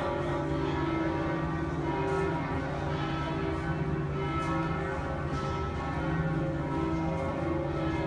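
Bells ringing steadily, many overlapping tones sounding together.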